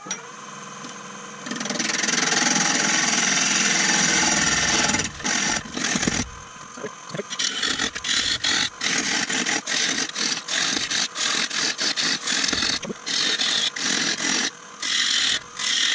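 Wood lathe spinning up, then a turning tool cutting into the spinning beech bowl blank as the inside is hollowed: one steady cut for a few seconds, then a run of short cuts broken by gaps.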